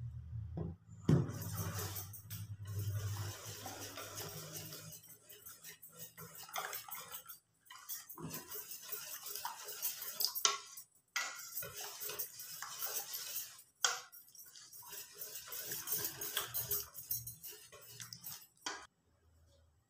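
Wire whisk beating batter in a stainless steel bowl: rapid clinking and scraping of the whisk against the metal sides. There are a few brief pauses, and it stops shortly before the end.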